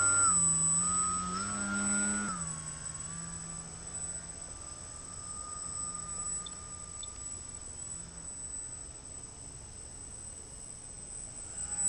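Whine of a small brushless electric motor on an EPP foam RC plane, its pitch stepping up and down with the throttle, then fading to a faint wavering whine after about two seconds.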